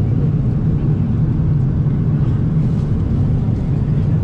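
Steady low drone of an airliner cabin in flight: engine and airflow noise.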